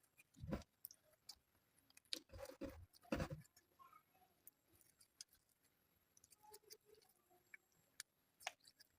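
Slime being handled: faint scattered small clicks and pops, with three louder soft squishes about half a second, two and a half and three seconds in.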